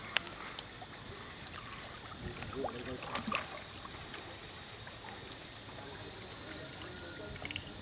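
Steady, gentle pond water noise, with a few small clicks and faint vocal sounds about three seconds in.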